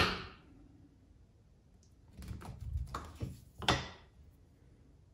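Kitchen knife cutting a slice off a block of cheese on a wooden cutting board: a sharp knock at the start, then a couple of seconds later a run of short scraping strokes and a louder knock near the end.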